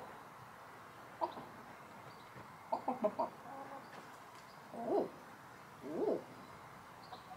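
Backyard hens clucking. There is a short cluck about a second in, a quick run of clucks around three seconds, then two longer drawn-out calls about five and six seconds in.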